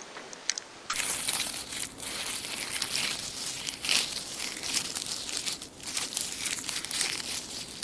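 Dry autumn leaves crunching and crinkling in a dense, continuous run, starting about a second in after a few faint clicks.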